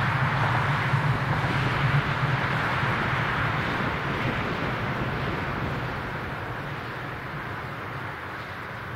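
A car passing and driving away, its engine hum and tyre noise fading steadily over several seconds.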